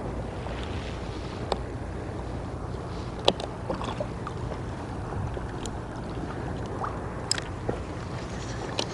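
Small fishing boat on choppy sea: waves lapping against the hull over a low steady hum, with a few sharp clicks and knocks, the loudest about three seconds in.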